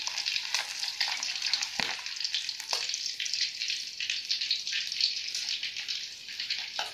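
An egg frying in hot oil in a wok, sizzling and crackling steadily, with a couple of knocks of the metal spatula against the pan as the egg is lifted from the oil. The sizzling eases a little near the end.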